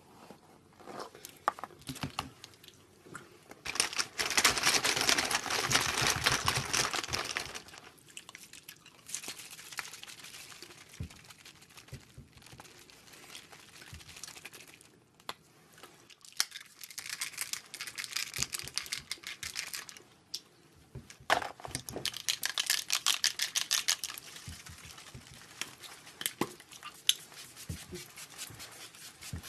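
Cosmetics being handled at a counter: several bursts of rustling and crinkling from makeup pouches and packaging, with small clicks and taps of containers between them.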